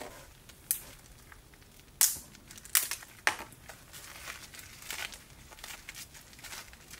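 Cured resin support structures snapping and crackling as they are broken off a clear 3D-printed filter frame by gloved hands: a few sharp snaps in the first three or four seconds, then a run of fainter crackles.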